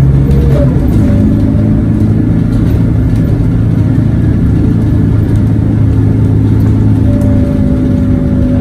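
Scania K94UB city bus's rear-mounted nine-litre five-cylinder diesel engine, heard from inside the passenger cabin while the bus drives along. It is a steady low drone, and a faint higher whine joins it near the end.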